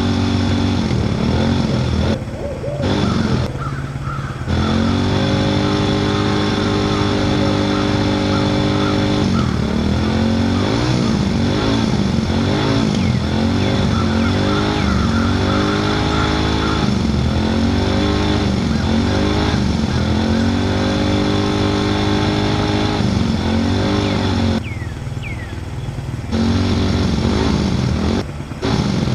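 A vehicle engine running and being revved, its pitch holding steady for a few seconds at a time and then rising and falling about once a second in repeated blips, with a few brief drops in level.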